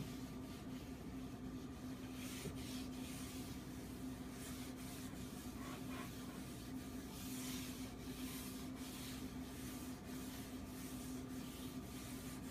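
Cloth rubbing over a wooden cutting board in repeated back-and-forth strokes, over a steady low hum.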